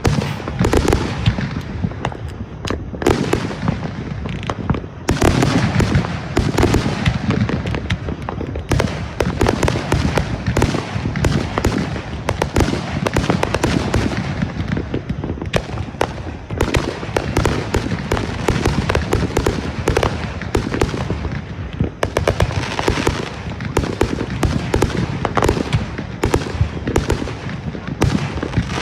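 Consumer fireworks going off in a continuous barrage: dense, rapid crackling and popping with booms underneath, no pause throughout.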